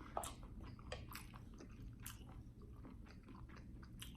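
A person chewing a mouthful of escargot fried rice close to the microphone, faint irregular wet clicks of the mouth and teeth.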